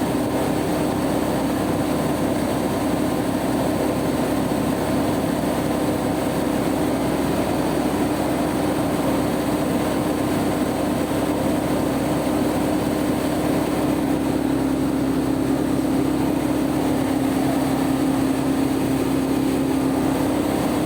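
Generator powered by a converted 16-valve EFI car engine running steadily at constant speed, with an even hum.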